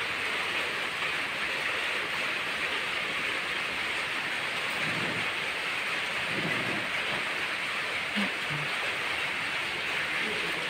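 A steady hiss of background noise with no clear events, with a few faint low sounds about halfway through.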